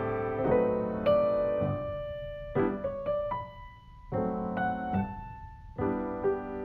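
Slow solo piano music, with single notes and chords struck and left to fade, softer for a moment near the middle.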